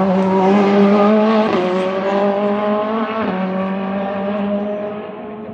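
A race car's engine passing close and pulling away: one loud engine note that peaks about a second in and then fades, with two sudden steps in pitch about one and a half and three seconds in as it changes gear.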